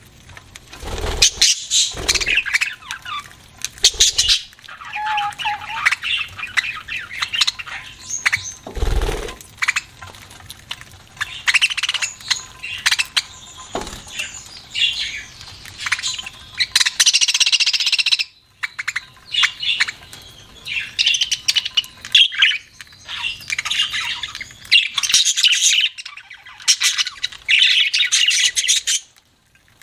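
Budgerigars chirping, chattering and squawking in quick, busy bursts, with a few low thumps in the first ten seconds.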